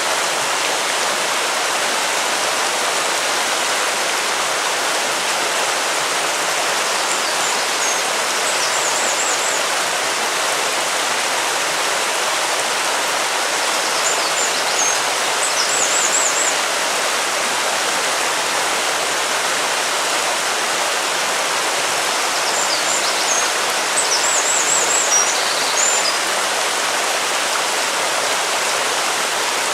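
River water flowing steadily. Short runs of high-pitched chirps come three times: about a quarter of the way in, halfway, and near the end.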